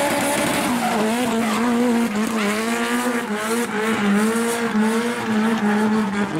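Drift car sliding sideways through a corner, its rear tyres squealing in wheelspin while the engine is held at high revs, the note wavering slightly with the throttle.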